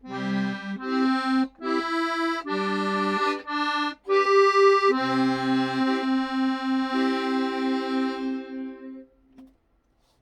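Accordion playing the last phrase of a slow melody over bass notes, ending on a long held note that stops about nine seconds in.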